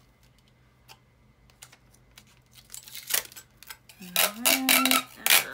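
Clear packing tape pulled off the roll in quick, crackling rips, starting about three seconds in after a quiet stretch with a few faint taps.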